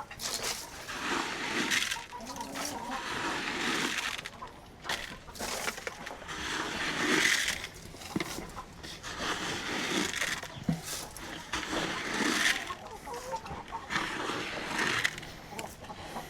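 A flock of hens clucking while scratch grain is scattered for them, with repeated rustling bursts a second or two long.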